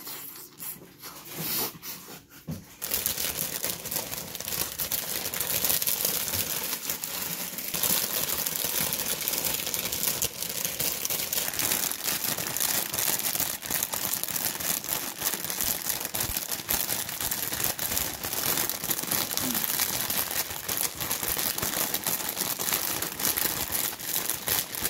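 Crinkling of a foil chip bag being handled, a dense, continuous rustle that starts about three seconds in and runs on after a quieter start.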